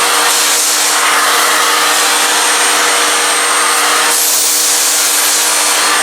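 Eureka Forbes Euroclean X-Force 1400-watt canister vacuum cleaner running loud and steady: a rush of air over a motor hum with a thin high whine. The airflow sound shifts slightly shortly after the start and again about four seconds in.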